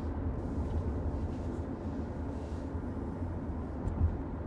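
Car interior road noise while driving: a steady low rumble of tyres and engine, with a small knock or two about four seconds in as the car goes over bumps in an old, uneven road.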